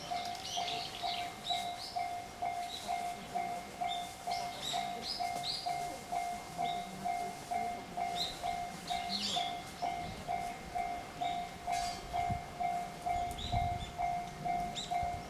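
Japanese railway level-crossing warning bell ringing steadily at about three dings a second, the signal that a train is due. A train's low rumble builds in during the last few seconds.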